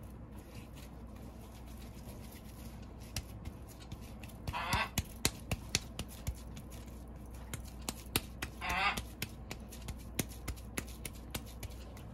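A honking animal call, twice, each under half a second, about four seconds apart. Under it are scattered light clicks and taps from hands working dough.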